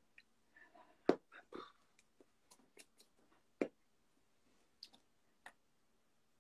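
Scattered soft clicks and taps from people signing, with two louder knocks, about a second in and just past the middle, over a faint steady hum.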